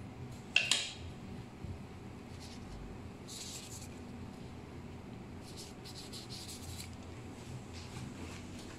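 Light handling noises over a steady low room hum: one sharp click about half a second in, then a few brief soft rustling scrapes.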